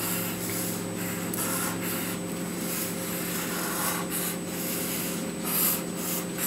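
Marker drawn in repeated quick strokes across a drawing surface, a scratchy rubbing hiss; the marker is running dry. A steady low hum lies underneath.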